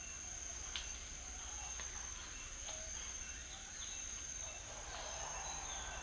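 Jungle ambience: a steady high-pitched insect drone with scattered short bird chirps and calls over it.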